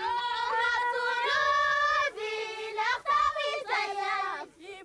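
A single high voice singing a slow melody of long held notes that bend at their ends, with short breaks between phrases.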